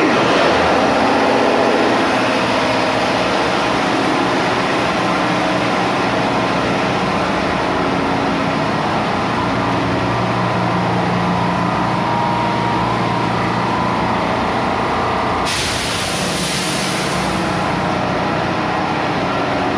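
Starboard Yanmar diesel generator engine running steadily and loud, freshly started by hand. About three-quarters of the way through, a loud hiss rises over it for about two and a half seconds.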